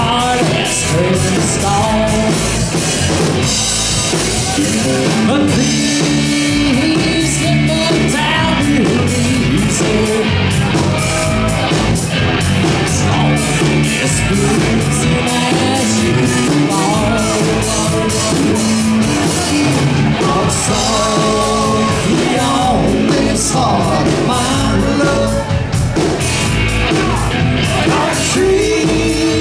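Live rock band playing: electric guitar, bass guitar and drum kit, with a lead singer.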